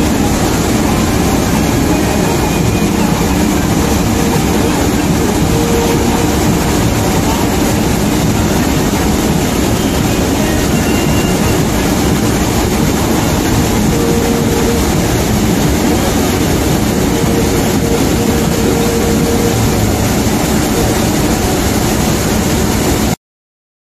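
Combine harvester running steadily at working speed as its unloading auger pours threshed mung beans into a trolley. The sound cuts off suddenly just before the end.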